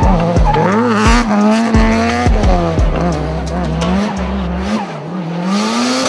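A car drifting in tight circles: its engine is held high in the revs, the pitch wavering up and down as the throttle is worked, with the tyres squealing. A background music beat sits underneath and drops out a little before the end.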